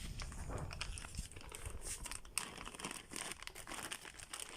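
Packaging crinkling and rustling as it is handled, with scattered light clicks and knocks.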